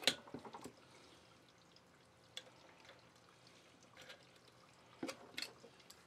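Scattered small clicks and taps of needle-nose pliers against the vacuum pump motor's metal end housing as wires are worked out of its wiring compartment, with one sharper click at the very start and a few faint ones after.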